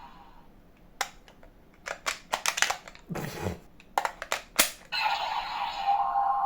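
Plastic clicks and clacks of a DX Zeztz Driver toy belt being worked by hand, with a short scrape partway through. About five seconds in, the belt's speaker starts a steady electronic tone.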